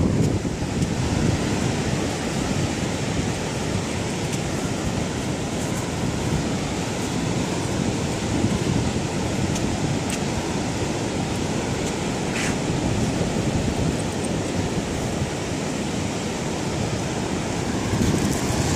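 Ocean surf washing steadily onto a sandy beach, with wind buffeting the microphone in low gusts.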